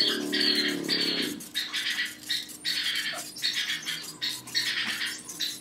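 Aerosol spray can of Diton Premium silver metallic paint hissing in short repeated bursts, about one to two a second with brief gaps, as the base coat is sprayed onto a motorcycle wheel rim.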